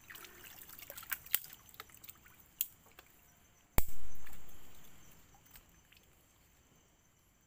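Shallow muddy water splashing and sloshing as a hand gropes in the mud for a crab, with scattered drips and clicks. About four seconds in comes a sudden loud thump that dies away over a couple of seconds.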